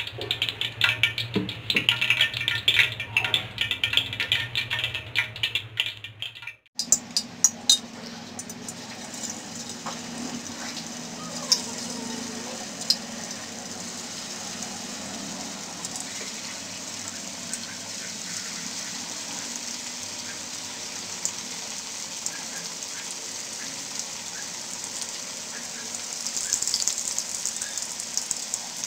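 Background music for about the first seven seconds, cutting off abruptly. Then coated fish fillets deep-frying in hot oil: a steady hiss with scattered crackles, getting a little louder near the end.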